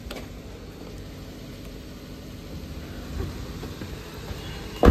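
Maruti Suzuki Ignis engine idling with a low steady hum, then a car door slams shut near the end.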